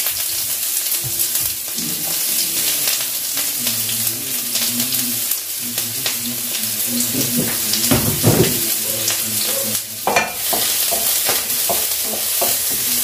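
Food sizzling in hot olive oil in a frying pan, a steady hiss. From about seven seconds in it is stirred with a wooden spatula, adding irregular scrapes and knocks against the pan.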